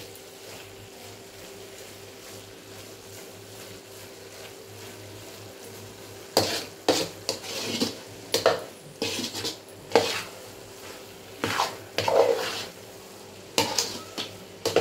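Metal spatula scraping and stirring thick grated-carrot halwa in a large aluminium kadai: a run of irregular scraping strokes starts about six seconds in, with a low steady hum before and beneath them.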